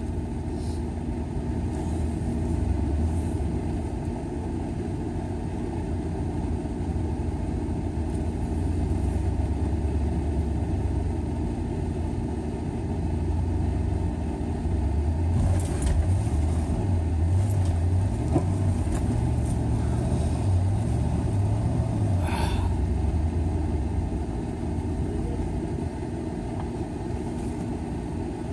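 Vehicle engine running with a steady low rumble that swells and wavers through the middle stretch, with a few short knocks, as a vehicle stuck in a snow-covered mud hole is pulled free with a recovery strap.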